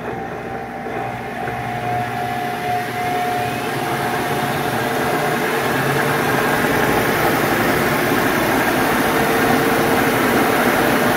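Monarch 10EE lathe headstock and spindle running in direct belt drive, out of back gear, speeding up to about 3,500 rpm and growing steadily louder, with a faint rising whine.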